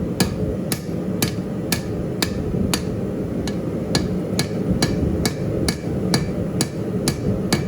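Steady, evenly paced hammer blows on hot steel, about two strikes a second, forging the shanks of a pair of spurs. A steady low rumble runs underneath.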